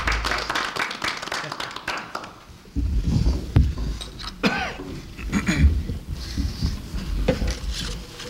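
A few people clapping for about two and a half seconds. Then the clapping stops, giving way to low thumps, rustling and brief muffled voices as people move about the room.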